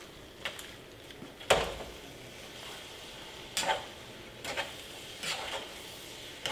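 A cooking utensil knocking and scraping against a pan while pad thai noodles are stirred, about five strokes with the loudest about a second and a half in, over a faint steady sizzle.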